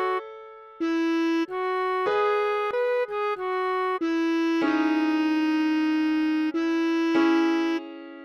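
Solo bass clarinet playing a slow melody one note at a time, at a half-speed practice tempo. A short rest comes just after the start, then several shorter notes, a long held note in the middle, and the line stops just before the end.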